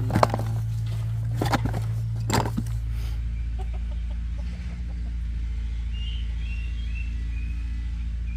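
A steady low hum, with three sharp knocks in the first three seconds, then a few faint, short, high bird peeps later on.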